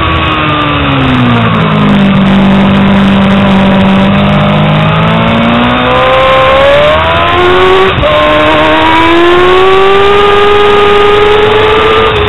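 2000 Yamaha R6's inline-four engine, heard onboard. The revs fall as it slows for a bend and hold steady through the corner. Then they climb as it drives out, with a brief dip for an upshift about eight seconds in.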